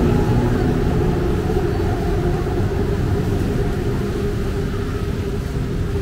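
Steady low rumble of city traffic, with a faint steady hum above it.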